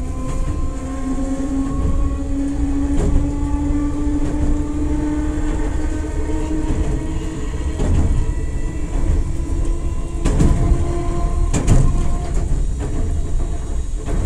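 Enoden electric train running, heard from inside the carriage: a steady rumble with a motor and gear whine that rises slowly in pitch as the train gathers speed. A few sharp clacks of the wheels over rail joints come through the second half.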